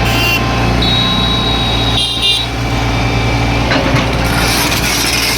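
Diesel engine of a heavy earthmoving machine running steadily under load. A thin high-pitched whine comes in about a second in and stops after a second and a half.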